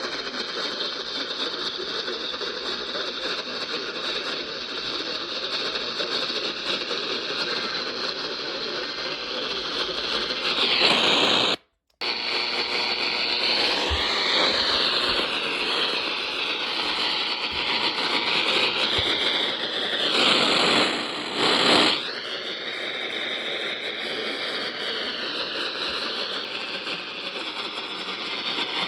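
Radio static on a weakly received station: a steady hiss with bad reception. It cuts out completely for a moment about twelve seconds in, then comes back with louder swells of noise and wavering whistles that slide up and down.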